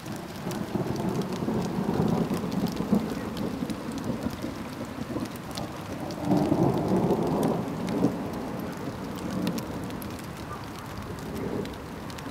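Thunderstorm: low rolling thunder over steady rain with scattered drop ticks. The rumble swells about two seconds in and again around six to eight seconds.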